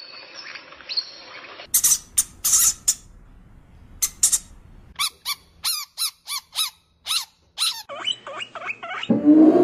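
A string of animal calls. A rainbow lorikeet screeches in short loud bursts, then a guinea pig wheeks: a run of about eight squeaks, each falling in pitch, followed by smaller squeaks. A dog's loud, low call begins near the end.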